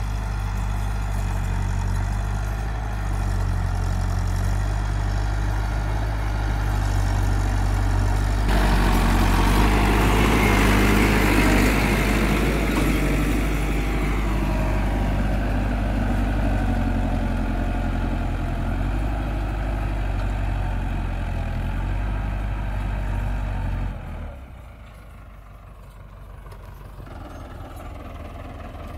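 Massey Ferguson 385 tractor's four-cylinder diesel engine running steadily while it pulls a tine cultivator through the soil. About a third of the way in the sound suddenly gets louder and noisier. A little before the end it drops to a much quieter engine sound.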